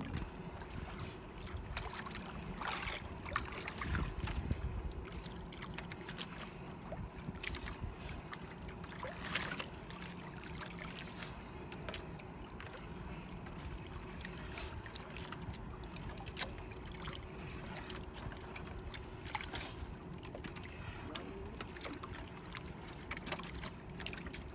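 Sea water lapping and sloshing against the side of a small wooden outrigger boat, with scattered small knocks and clicks from the boat.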